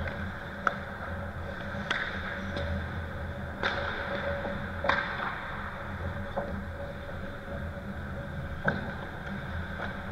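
Ice hockey play: about eight sharp, irregular clacks of sticks and puck over a steady rink hum.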